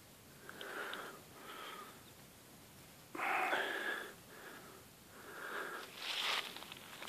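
A person breathing close to the microphone: several breaths, each about half a second to a second long, the loudest about three seconds in.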